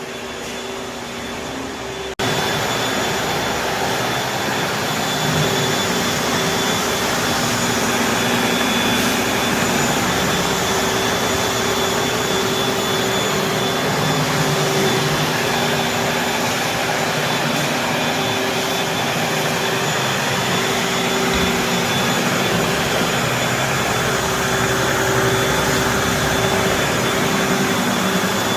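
Floor-refinishing machinery running steadily with a constant whine while stripping old finish off a hardwood floor, by scrubbing and vacuum extraction. About two seconds in, it jumps abruptly louder.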